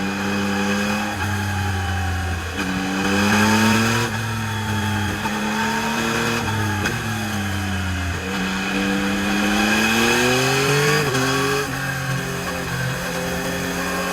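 Yamaha MT-09 SP's inline three-cylinder engine through its stock exhaust, ridden on the road. Engine pitch climbs and falls several times as it accelerates and eases off, dropping suddenly a few times.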